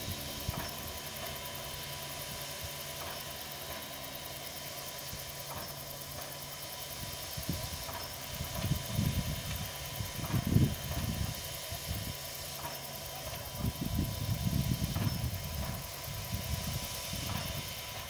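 Soviet-era steam locomotive standing and simmering: a steady hiss with faint ticks every two to three seconds. From about eight seconds in, irregular low gusts of wind buffet the microphone.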